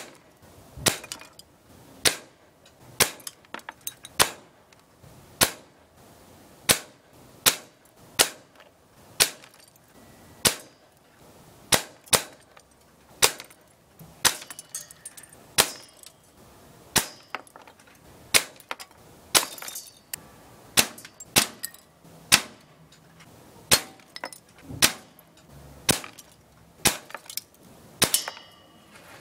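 Break-barrel .177 spring-piston air guns firing in a rapid series, about one sharp shot a second, some shots followed closely by a fainter click.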